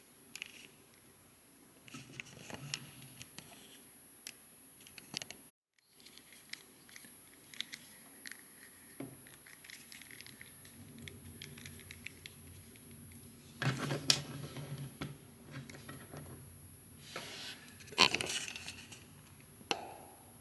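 Hands handling and posing a small plastic action figure: scattered light clicks, taps and rubbing of plastic parts, with louder bursts of handling about 14 and 18 seconds in.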